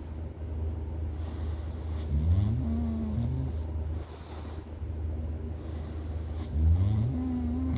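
A person snoring in deep sleep: two snores about four seconds apart, each rising in pitch at its start, with airy breathing between them over a steady low hum.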